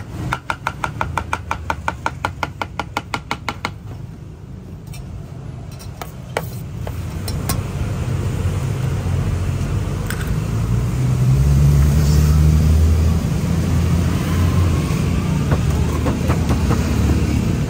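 Chef's knife chopping a banana on a bamboo cutting board: a quick, even run of knocks, about six a second, for the first three and a half seconds. Later a steady low rumble of street traffic engines, such as passing motorbikes, rises and holds.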